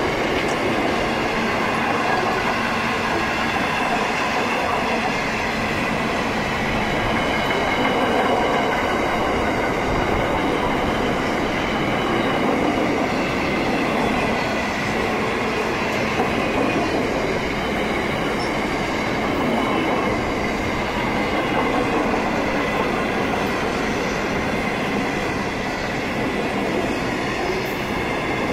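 Freight wagons rolling past at close range: a steady, loud rush of steel wheels on rail, with a faint high-pitched wheel squeal running through it.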